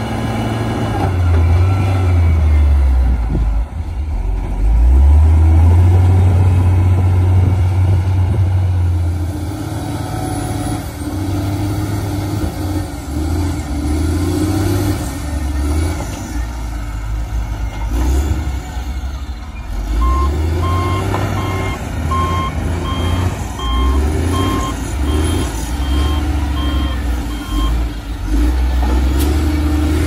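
Heavy diesel engines of a motor grader and then a wheel loader running under load, the engine note rising and falling as the machines work. In the second half a reversing alarm beeps in an even series for about seven seconds.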